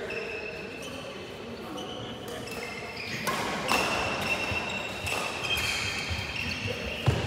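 Badminton rackets hitting shuttlecocks, a few sharp strikes from about three seconds in, with short sneaker squeaks on the court mat, echoing in a large hall.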